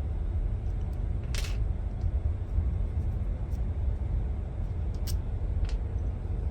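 A steady low rumble in the background. Over it come a short scrape about a second and a half in and a few faint clicks near the end.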